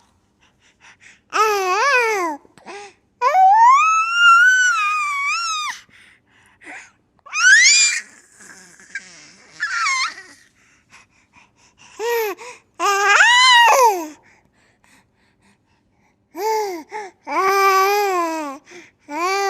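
Baby laughing and squealing in about six high-pitched bursts with short pauses between, including one long rising squeal held for about two seconds.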